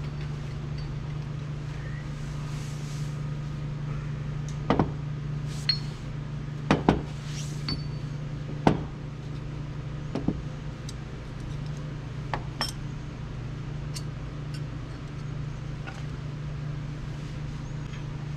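Scattered sharp metal clinks and taps at irregular intervals, from tools and engine parts being handled during assembly, over a steady low hum.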